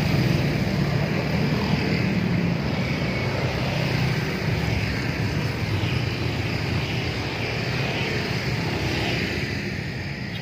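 Steady low drone of a passing engine, slowly fading away.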